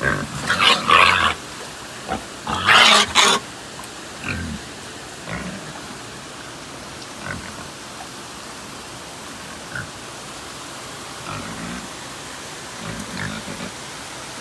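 Hogs squealing loudly twice in the first few seconds, then giving short, fainter grunts now and then, over a steady hiss of rain.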